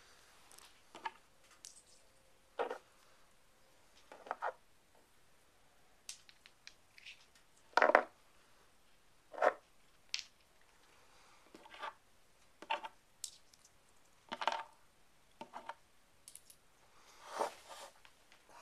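Small stones clicking and knocking against one another in a person's hands: about a dozen short, separate knocks at irregular intervals, the loudest about eight seconds in.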